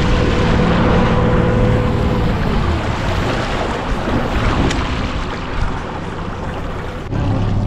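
Boat motor running steadily, its pitch falling and fading about two and a half seconds in as it is throttled back, leaving the wash of water along the hull and wind on the microphone. The motor sound starts again abruptly near the end.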